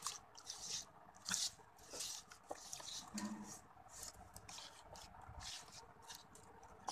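Faint, irregular wet squishing and slapping of a bare hand massaging soy-sauce marinade into the skin of a whole chicken.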